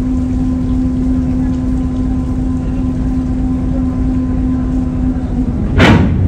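A ferry's diesel engines running steadily: a constant rumble with a steady hum. Near the end comes one short, loud knock.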